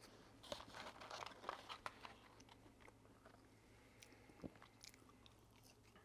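Faint chewing of McDonald's french fries: soft crunches and mouth clicks, most of them in the first two seconds, with one sharper click about four and a half seconds in.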